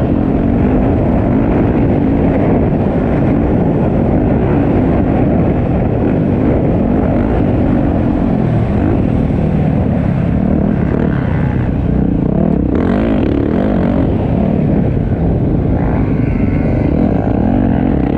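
Motocross bike engine revving hard while racing, its pitch rising and falling over and over as the throttle opens and closes, heard close up from a camera on the bike.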